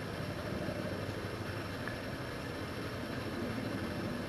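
Helicopter flying overhead: a steady drone of its rotor and engine.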